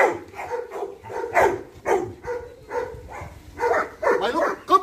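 A dog barking repeatedly, about two or three barks a second.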